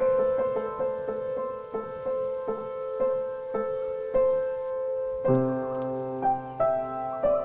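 Background music: a soft melody of evenly spaced notes, about two a second, with deeper bass notes joining about five seconds in.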